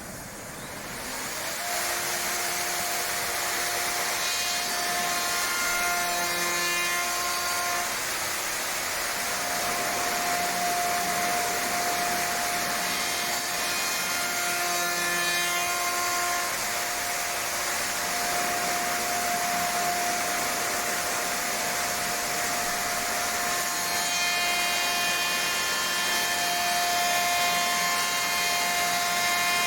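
CNC woodworking machining centre cutting wood: a steady cutting noise with a whining tone from the spindle, growing louder about a second and a half in, the whine dropping away and coming back a few times.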